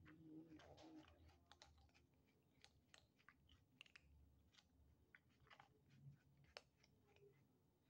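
Cats crunching dry kibble from a shared plate: faint, irregular crunches and clicks of chewing.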